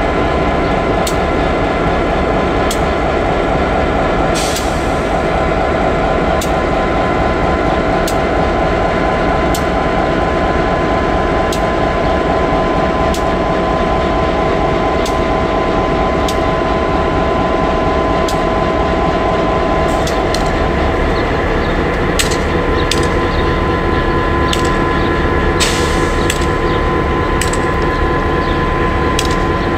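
Pair of EMD G26CW diesel locomotives with Roots-blown two-stroke engines working at low speed: a steady engine drone with a held whine. Sharp clicks come about every second and a half, then grow irregular after about twenty seconds.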